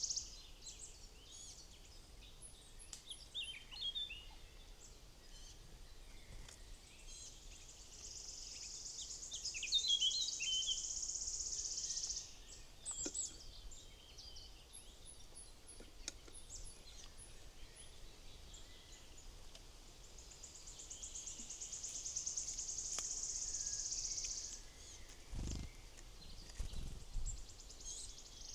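Wild birds at a feeder giving short chirps and calls, while a high, even buzzing trill of about four seconds comes and goes about every twelve seconds. A few soft low thumps sound near the end.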